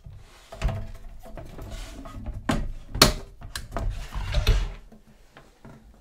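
Knocks, clicks and scraping as a typewriter and the base of its carrying case, with its metal mounting bracket, are handled and moved. The loudest is a sharp knock about three seconds in.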